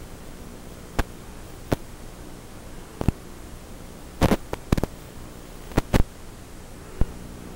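Steady hiss of static from an analog FPV video receiver, broken by sharp crackling pops every second or so as the radio signal breaks up.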